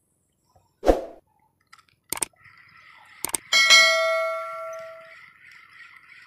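Subscribe-button sound effect: a knock and a couple of sharp clicks, then a single notification bell ding that rings out and fades over about a second and a half.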